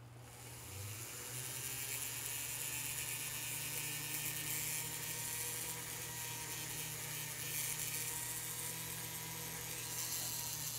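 Jeweler's rotary handpiece spinning a fine abrasive sanding wheel against a gold ring: a steady whir that builds up over the first second or two and then holds. The wheel is smoothing away setting tool marks and scratches on the gold around a flush-set sapphire.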